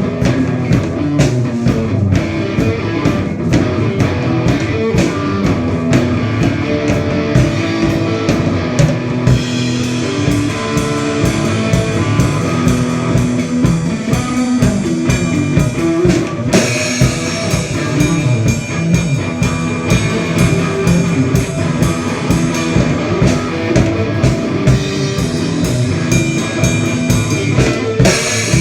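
Rock band playing: guitar over a drum kit keeping a steady beat.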